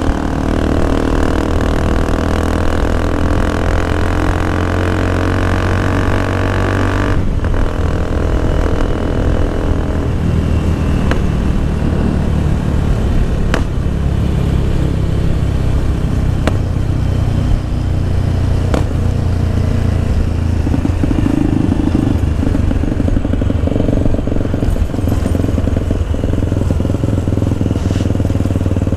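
Motorcycle engine running under way, its pitch rising steadily as the bike accelerates for the first seven seconds, then breaking off briefly at a gear change. After that it runs on as a rougher, steadier low rumble with a few faint ticks.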